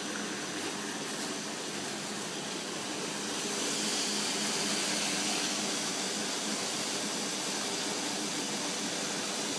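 Central-drum slitting and rewinding machine running: a steady mechanical whir and hiss from its drives and from the paper web travelling over the rollers, swelling slightly about four seconds in.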